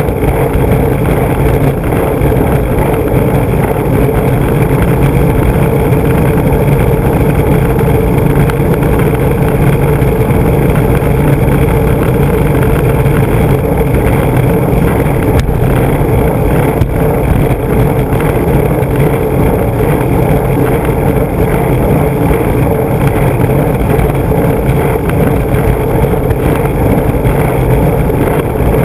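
Urethane skateboard wheels rolling over rough asphalt: a loud, steady road roar with rumble and vibration carried through the board to an on-board camera.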